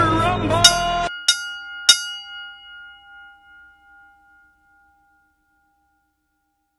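Boxing ring bell struck three times in quick succession, about 0.6 s apart, the ringing fading away over a few seconds. Music and voices cut off just after the first strike.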